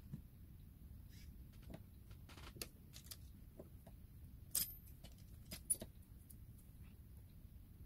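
Scattered light clicks and taps of small hand tools against the plastic and glass of a Samsung Galaxy Tab A T295 tablet being taken apart, the two sharpest a little past halfway.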